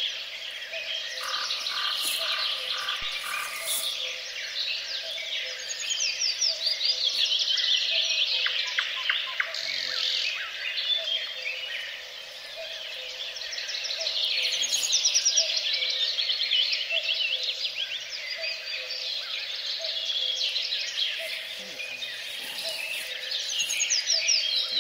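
Many songbirds singing at once in a dense chorus of quick chirps and trills, over frogs croaking steadily underneath.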